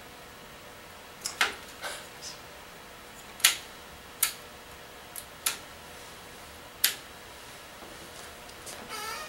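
Sharp clicks from the binocular eyepieces of a Labomed Prima operating microscope being twisted and adjusted by hand (eye guards and diopter rings), about nine clicks at irregular intervals, then a short scraping rattle near the end.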